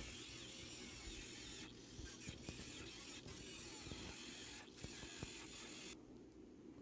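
Faint, scattered mechanical clicks and ticks over a low steady hiss.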